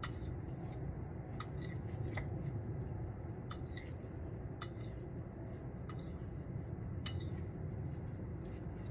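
A dog barking in short, sharp, separate barks about once a second, faint against a steady low rumble.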